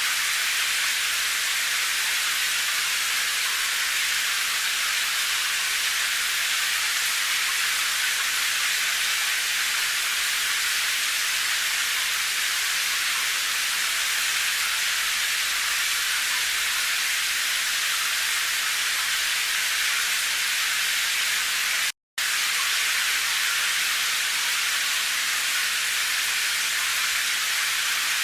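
Steady, even hiss of rain noise with no separate drops standing out. It cuts out to silence for a split second about three-quarters of the way through.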